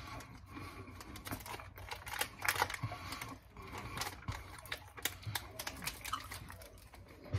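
A person chewing a bite of a chocolate, peanut butter and caramel candy bar with Reese's Pieces in it, the wet mouth making soft, irregular clicks.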